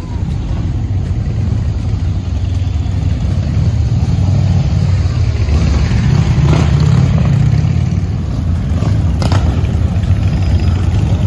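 Several cruiser motorcycles running at low speed as they ride past in a group. The low engine sound grows louder over the first few seconds and then holds steady.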